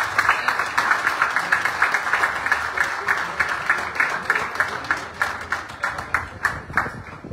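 Applause: a group of people clapping, thinning out and dying away near the end.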